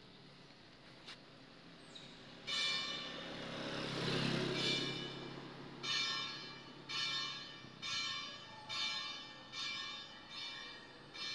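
A bell struck again and again, about once a second and a little faster towards the end, each ring dying away before the next. A burst of rushing noise is mixed in about four seconds in.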